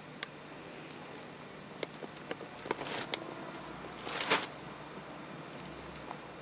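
A small long-haired dog stirring and turning its head: a few light clicks and two brief rustles, the louder one about four seconds in, over a steady faint hiss.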